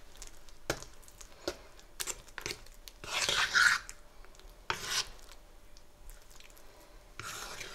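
Fork scraping and clicking against a ceramic bowl while stirring wet gram-flour (besan) batter, in short strokes with longer scrapes about three seconds in and again near five seconds.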